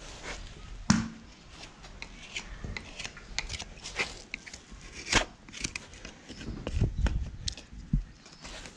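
Hoof knife paring and scraping the sole of a horse's hoof: a quick run of short scrapes and clicks, with louder knocks about a second in and again near the middle, and a few low thuds later on. The sole is being pared out to open and clean a hoof abscess.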